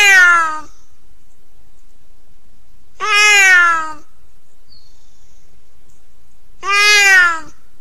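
Puma (cougar) calling: three calls roughly three and a half seconds apart, each lasting about a second and sliding down in pitch.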